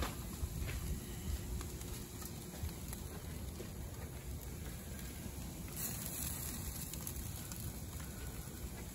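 Beef souvlaki skewers sizzling on a gas barbecue grill, with faint scattered crackles over a low steady rumble and a brief hiss about six seconds in.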